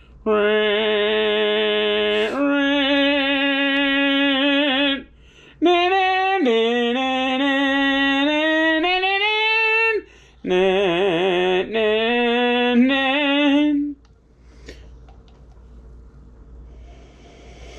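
A man singing unaccompanied in long, drawn-out held notes, several phrases with gaps between them and some vibrato. The singing stops about three-quarters of the way through.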